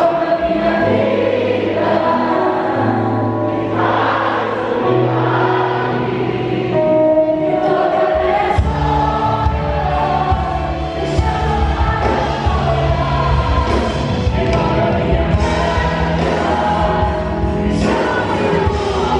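Live Portuguese-language worship song, sung by several voices over a church band. The band grows fuller with a heavier low end about halfway through.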